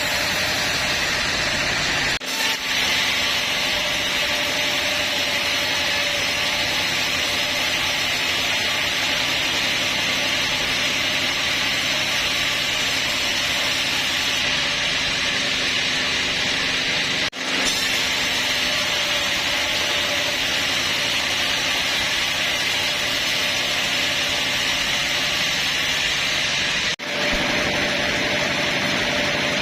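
Sawmill band saw cutting teak, a steady hiss of the blade in the wood over a machine hum; the sound breaks off for an instant three times.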